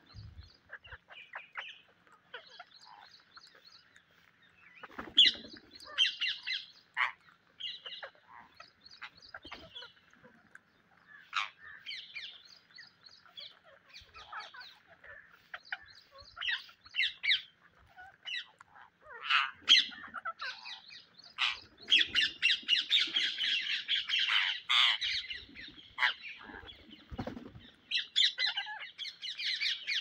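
A flock of rose-ringed parakeets squawking and chattering: many short, shrill calls overlapping, thickest into a dense chorus about two-thirds of the way through.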